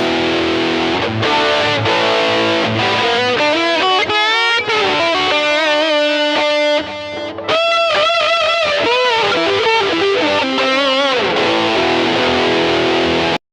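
Electric guitar played through a Zoom G1XN multi-effects pedal: a lead line with bent notes and vibrato over a processed tone. It cuts off suddenly just before the end.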